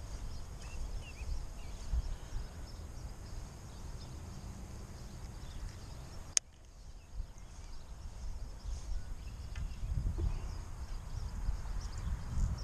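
Wind buffeting the microphone in uneven gusts, with one sharp click about six seconds in.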